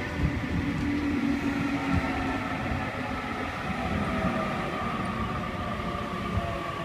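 Sydney Trains Waratah (A set) electric train arriving and slowing, its traction motors whining in several tones that slowly fall in pitch over a steady rumble.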